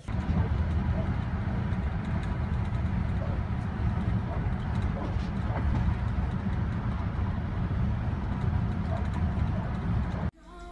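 Steady road and engine rumble of a moving pickup truck, heard from inside its cab. It cuts off suddenly near the end.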